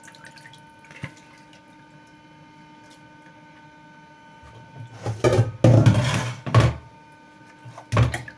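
Cooked chicken and onion sauce dripping from a plastic colander into a bowl. About five seconds in comes a couple of seconds of loud clattering and scraping as the colander of chicken is handled with a wooden spoon, then a sharp knock near the end as it is set down.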